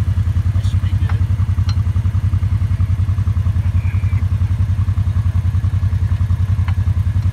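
A vehicle engine idling with a steady, even low chug, with a few faint clicks over it.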